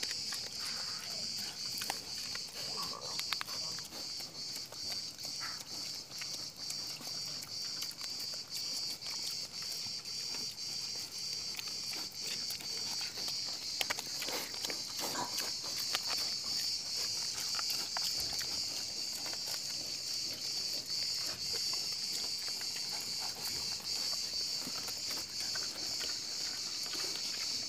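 Insects chirring steadily in a high band with a fast, even pulse, with scattered soft clicks and scuffs from a wild boar rooting and feeding close by.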